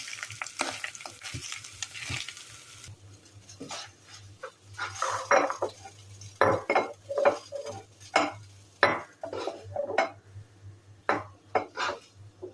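Kitchen cooking sounds: a sizzling hiss for the first three seconds or so, then utensils clinking, knocking and scraping against pots and dishes, over a faint low hum.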